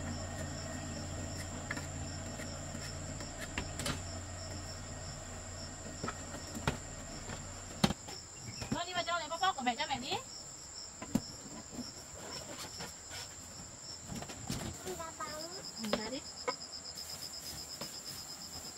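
Insects chirring steadily at a high pitch, with scattered knocks and taps. A short wavering high call sounds about nine seconds in and again around fifteen seconds.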